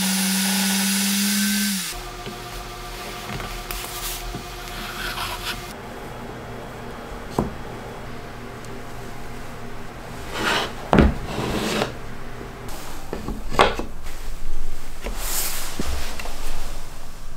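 A power tool motor running at a steady pitch, which stops abruptly about two seconds in. After that, wooden pieces are handled, rubbing and scraping against each other with a few light knocks and clicks.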